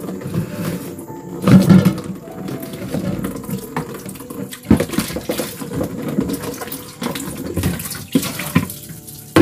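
Water splashing and running, with irregular knocks and clatters over it, loudest about a second and a half in.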